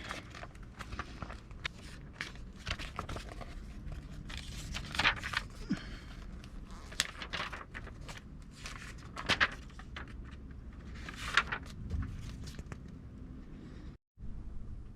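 Handling noises of someone working by hand: scattered light knocks and clicks with bits of rustling and crinkling, plus a few footsteps.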